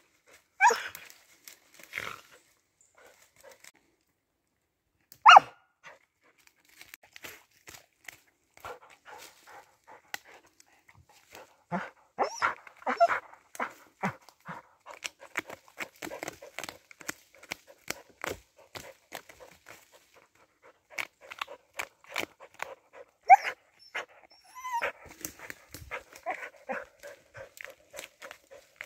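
Siberian husky hunting a mouse in a tree stump: sniffing, snuffling and scratching at the stump and dry leaf litter with its nose and paws, a dense run of short scrapes and rustles, broken by a few sharp, louder sounds from the dog.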